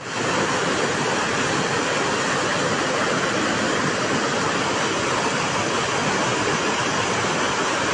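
Floodwater rushing, a loud steady rush of water.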